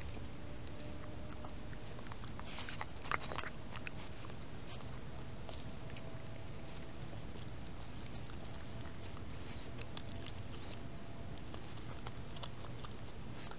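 Raccoon foraging right at the trail camera: scattered rustles and crackles in dry straw and leaves, with a louder burst of crackling about three seconds in. Under it run the camera's steady hiss and a constant high whine.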